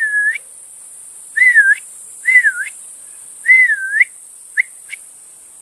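A man whistling through pursed lips: four short notes, each dipping in pitch and rising back, then two brief chirps near the end. It is the final syllable of a dog-calling whistle, shown as the air-and-tongue action that produces the cluck on a white-fronted goose call.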